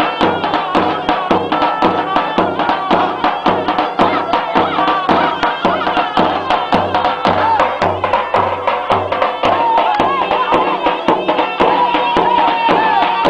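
Traditional folk dance music for a linked-arm line dance (halay): a steady, fast drum beat under a wavering, ornamented melody, which holds one long note near the end.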